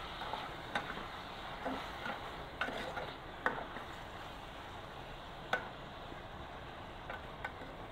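Metal ladle stirring and turning pieces of fish in a frying pan, with a steady faint sizzle and a handful of sharp clinks as the ladle knocks against the pan.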